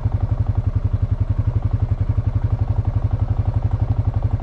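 Honda FourTrax Foreman ATV's single-cylinder engine idling at a standstill, a steady even chugging of about a dozen beats a second.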